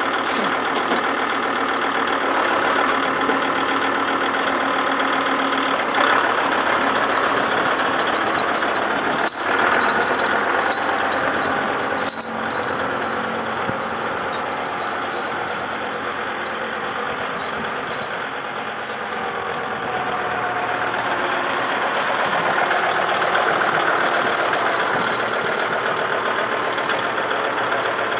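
Kubota tractor's diesel engine running steadily, with a few sharp knocks in the first half.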